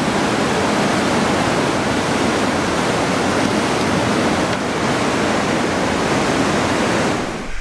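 White Salmon River whitewater rapids rushing and crashing over a drop, a loud steady roar of water.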